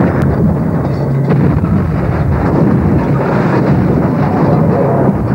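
Loud, steady rumbling vehicle noise, with no single impact standing out.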